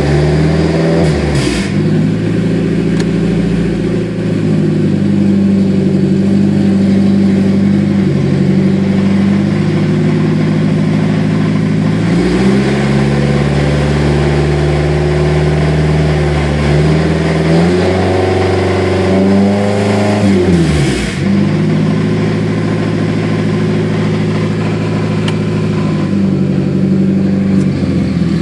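Car engine revved in drive and held at several speeds, its pitch rising and falling in steps, while the car goes nowhere: the driver-side CV axle is broken, so no drive reaches the wheels. A brief rush of noise comes about a second and a half in and again about twenty seconds in.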